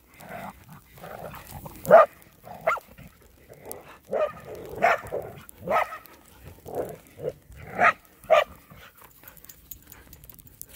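Dogs barking at play, about ten short barks in quick bouts, the loudest about two seconds in. The barking stops after about eight seconds.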